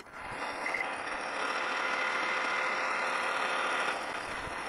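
Metal lathe starting up and running steadily while a tool faces off the end of a brass rod held in a collet chuck; the sound is strongest from about one second in until about four seconds, then eases.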